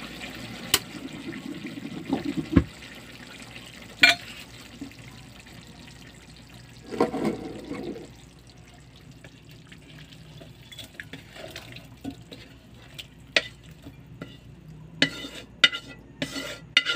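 Pork adobo sauce bubbling in a wok, with a few sharp knocks of a wooden spatula against the pan. The bubbling dies down about halfway, and near the end a run of clinks and scrapes follows as the adobo is scraped from the wok into a glass bowl.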